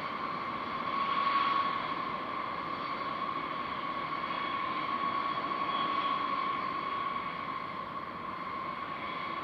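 B-52H Stratofortress engines (Pratt & Whitney TF33 turbofans) running at taxi power: a steady high whine over a broad jet rush, swelling slightly about a second in and again around six seconds.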